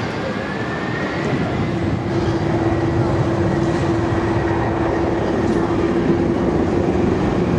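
Jet engines of a taxiing twin-engine widebody airliner at low power: a steady drone with a held low note and a faint high whistle, growing louder about two seconds in as the jet draws near.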